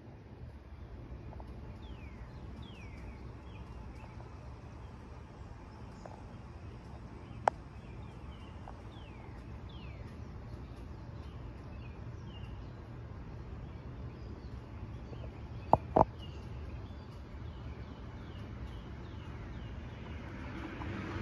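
Birds calling outdoors with short downward-sliding chirps over a steady low rumble. There are sharp clicks once about a third of the way in and twice in quick succession about three quarters of the way through, and a broader rumble swells near the end.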